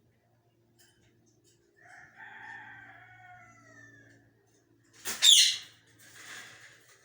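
A green parrot calling: a long drawn-out call that falls slightly in pitch, then a loud sharp screech about five seconds in, followed by a shorter rasping call.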